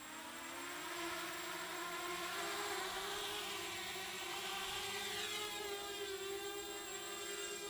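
Mini racing quadcopter's motors and propellers spinning up into a steady whine as it lifts off and flies low, the pitch rising over the first second and then wavering as the throttle changes.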